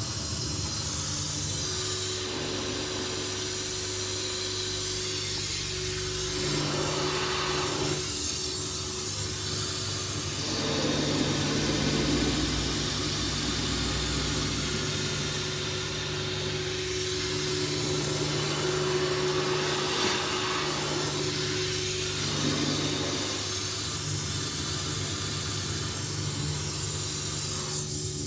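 Water poured over a BMW X3 E83's driver's door in a leak test of the door seals: a steady rushing hiss that swells and fades several times, over a steady low hum.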